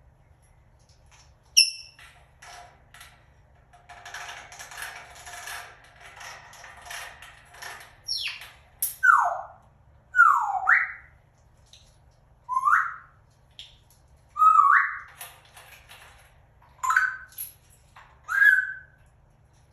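African grey parrot whistling a run of short, loud sliding whistles about eight seconds in: the first few drop in pitch, the later ones rise.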